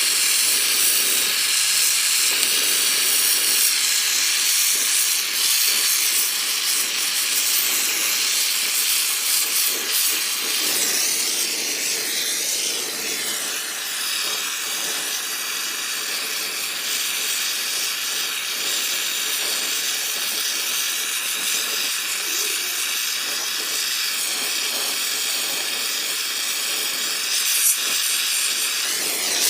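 Brazing torch flame hissing steadily while heating copper tubing. A thin, steady high tone joins the hiss about halfway through.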